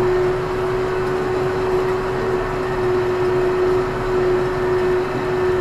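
Ursus C-392 tractor's diesel engine running steadily under load as it pulls a five-furrow plough through hard, dry ground: an even drone with a constant whine.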